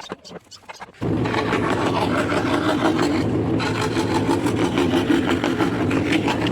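Homemade scroll saw cutting scrap wood: the motor and reciprocating blade start suddenly about a second in and run steadily with a fast chatter until they stop at the end.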